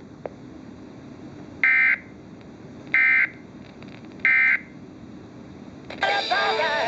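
Emergency Alert System SAME data tones: three short, identical warbling bursts of digital data, about 1.3 s apart, heard through a radio. This is the End of Message code that closes the severe thunderstorm warning broadcast. Near the end, regular radio programming with music and voices comes back.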